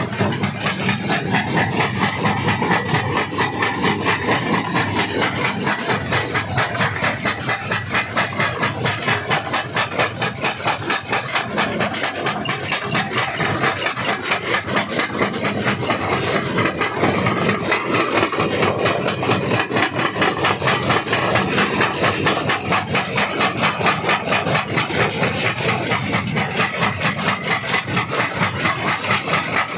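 Stone crusher running and breaking rock: a continuous grinding, crunching din with an even pulse several times a second.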